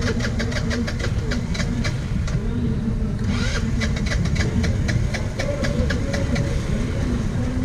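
Small motorcycle engine running at low revs, its pitch rising and falling, with a rapid even ticking over a heavy low rumble.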